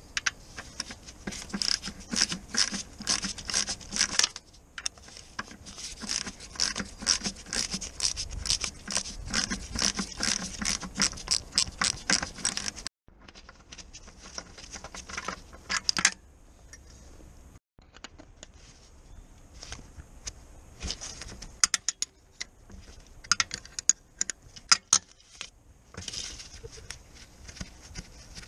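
Hand ratchet clicking in quick, even runs as it turns a bolt on the gearbox casing: two long runs over the first twelve seconds or so, then shorter, scattered bursts of clicks.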